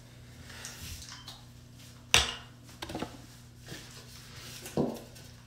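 Faint steady low hum with a sharp click about two seconds in and a few softer knocks from handling a toothbrush and toothpaste tube.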